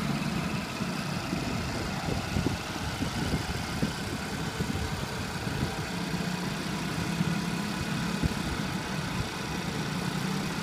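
Motor vehicle engine running steadily at a cruising pace, with a low hum and rumbling road noise from vehicles on the move. The hum is clearer in the second half.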